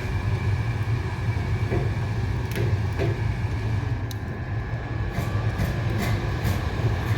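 Wood-fired heating boiler running: a steady low rumble of the fire burning in the firebox, with a faint steady whine and a few sharp crackles or clicks, more of them near the end.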